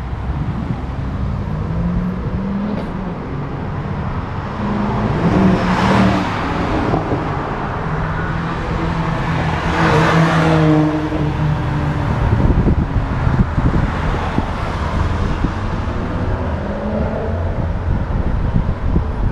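Performance cars driving past at speed, two pass-bys about six and ten seconds in, each engine note swelling to a peak and fading, over a steady low rumble.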